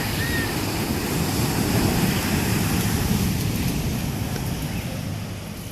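Large ocean waves breaking and washing up over the shore, with wind on the microphone; the rush swells about two seconds in and then slowly eases.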